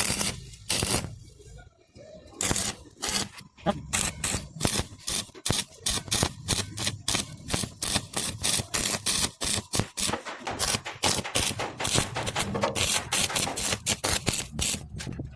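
A rapid, irregular series of sharp clicks and knocks, several a second, with a short lull about a second in and another near ten seconds.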